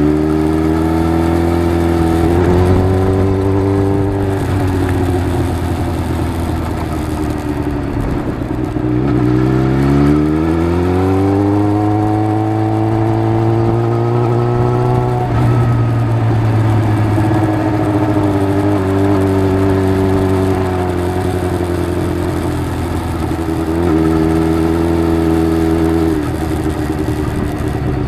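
Suzuki GSX-R750 sport bike's inline-four engine running under way, its pitch steady at first, dipping about nine seconds in, then climbing smoothly for about five seconds as the bike accelerates before dropping back and holding steady.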